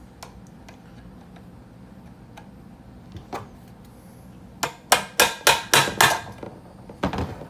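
Hammer striking a steel roll pin held in vice grips to drive it into the shifter: a few light taps, then a quick run of about six sharp metallic blows, about four a second, and two more near the end. The pin is resisting and not going in.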